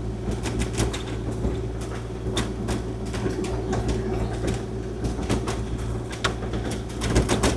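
Kubota KX040-4 mini excavator's diesel engine running steadily, with frequent irregular clanks and knocks from its tracks and blade working over snow-covered gravel.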